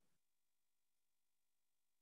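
Near silence: digital silence of a muted or idle online-class audio stream.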